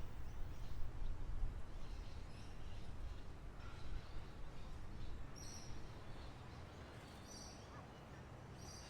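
Wild birds chirping: a few short, high chirps a second or two apart, the clearest in the second half, over a steady low rumble.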